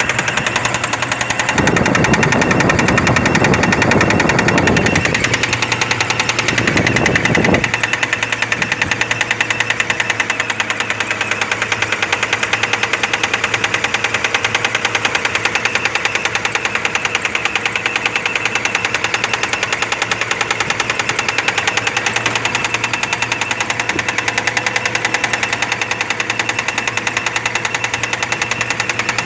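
Mitsubishi Pajero's 6G74 V6 engine running with a fast, even knocking tap that keeps time with the engine; this knock is the fault being shown. About two seconds in, the sound grows fuller and louder for a few seconds.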